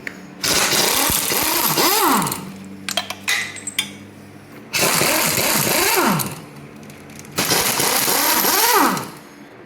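A power tool runs in three bursts of about a second and a half each, with a pitch that rises and then falls off as the tool slows at the end of each burst. These are the sounds of bolts being run out during an engine teardown.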